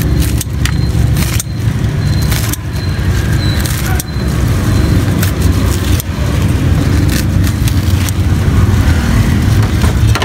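Kitchen scissors snipping crisp grilled baguette, with scattered sharp snips and crunches over a steady low rumble of background traffic.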